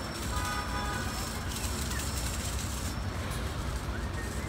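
Outdoor street ambience with a steady low rumble. A short high call, a few level tones stacked together, sounds during about the first second and a half.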